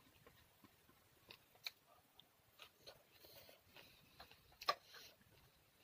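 Close-miked eating sounds: chewing with soft wet mouth clicks and smacks, scattered irregularly, and one sharper, louder click a little past the middle.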